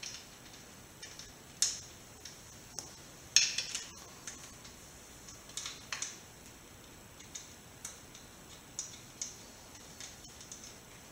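Scattered light metallic clicks and clinks of steel bolts being handled and set into the bolt holes of an engine's main bearing support plate, a few louder than the rest.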